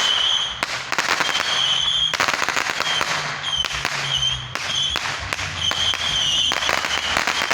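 Fireworks and firecrackers going off in dense strings of rapid crackling pops, broken by a few short lulls.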